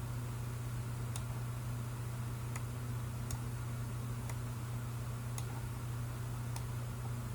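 Computer mouse clicking about six times at irregular intervals over a steady low hum.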